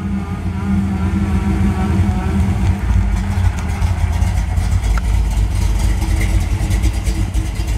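1966 Chevrolet pickup's engine running at low speed as the truck drives up and passes close by, getting somewhat louder and rougher as it nears.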